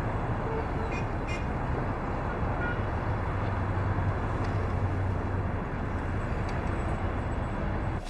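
Steady low rumble of a car and street traffic, with a couple of faint clicks about a second in.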